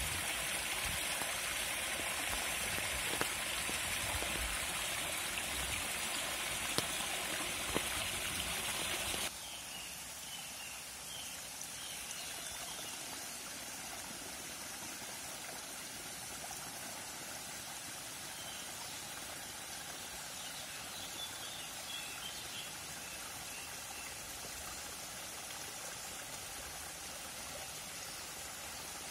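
Small woodland stream splashing down a rocky cascade. About nine seconds in it cuts suddenly to a quieter, steady trickle of water over mossy stones.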